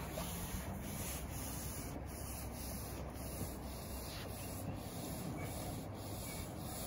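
Push broom brushing over a freshly laid roofing membrane to bed it into the adhesive, mixed with paint rollers on poles spreading water-based bonding adhesive over the plywood roof deck. The rubbing is steady.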